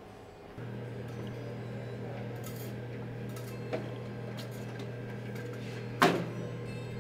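A steady low hum that starts suddenly with the cut to the espresso counter. Over it come a light click and then, near the end, a sharp clunk with a short ring, like a milk jug or mug set down on the steel counter.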